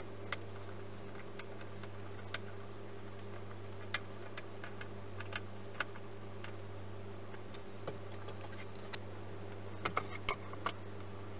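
Scattered sharp clicks and taps of a hand screwdriver against a metal ring-binder mechanism as it is screwed down, with a quick cluster of clicks near the end, over a steady low hum.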